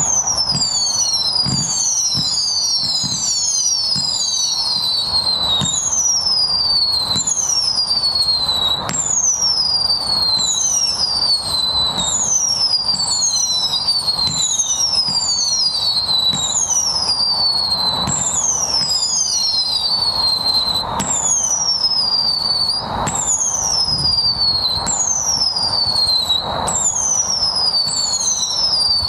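Tai Pan 'Discovery Endeavour' 200-shot firework cake firing a steady run of whistling shots, about one a second and often overlapping, each whistle falling in pitch. Launch pops and thuds sound under the whistles.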